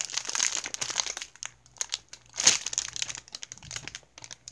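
Clear plastic packaging bag crinkling as it is handled, in irregular crackles, the loudest about two and a half seconds in.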